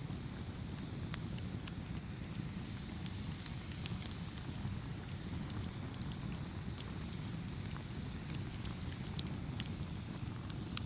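Campfire burning steadily with a low rumble of flames and frequent sharp, irregular crackles and pops of burning wood.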